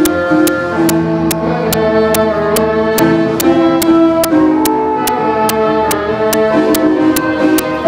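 Orchestral chase music: sustained bowed strings over a steady beat of sharp percussive hits, about two and a half a second.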